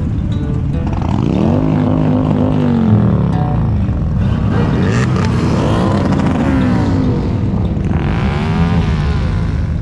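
Engine of a square-body Chevrolet Suburban running as the truck pulls away, its revs rising and falling about three times.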